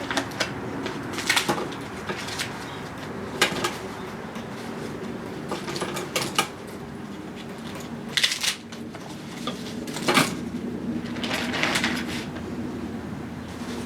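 Plastic freezer bag crinkling and rustling in irregular bursts as ears of corn are pushed into it, over a faint steady hum.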